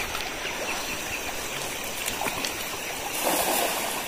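Shallow river running over stones, with a cast net splashing down onto the water about three seconds in, the loudest moment.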